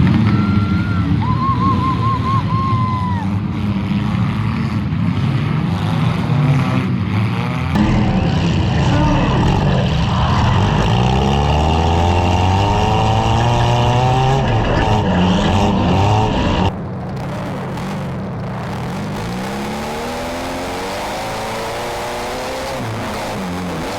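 Demolition derby compact cars' engines running and revving, with pitch rising and falling as the cars accelerate and back off. The sound jumps abruptly twice, and is quieter after the second jump.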